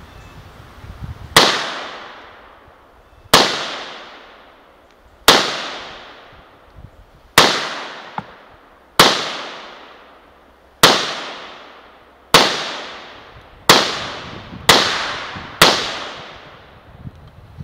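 Russian-made SKS semi-automatic rifle firing ten 7.62×39mm rounds, about two seconds apart at first and quickening to about a second apart near the end. Each shot is a sharp report with a trailing echo.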